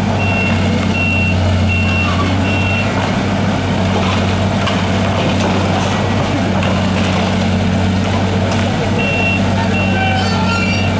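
Caterpillar 330B excavator's diesel engine running steadily while its demolition grapple breaks concrete from a building facade, with a few faint cracks of concrete giving way. A reversing alarm beeps about once every three-quarters of a second for the first three seconds and again from about nine seconds on.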